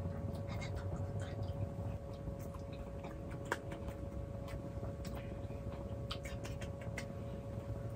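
A small dog chewing and crunching a treat, heard as scattered short clicks, then a few light hand claps near the end, over a steady low hum.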